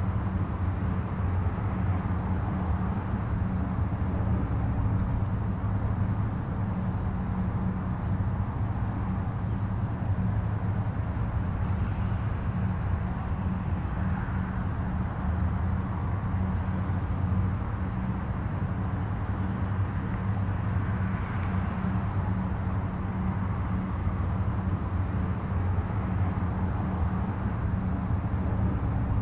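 Distant highway traffic: a steady, unbroken rumble of many vehicles, deepest in the low end, with a few gentle swells as individual vehicles pass.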